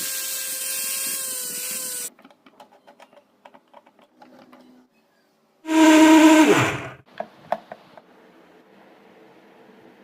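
Juicer blender's motor running at high speed with a steady whine, cutting off about two seconds in. After some light clicks it runs again for about a second and a half, then winds down with a falling pitch.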